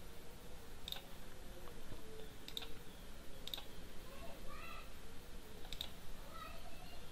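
Computer mouse clicking: about five single, sharp clicks at irregular intervals as the software is operated.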